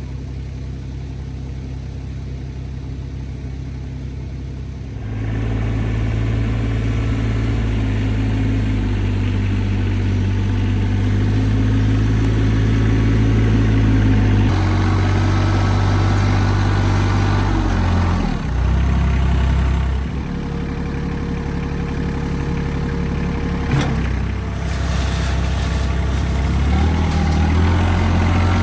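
RK 25 compact tractor engine running steadily, its engine speed stepping up about five seconds in and shifting several more times as it works, with a short dip about two-thirds of the way through.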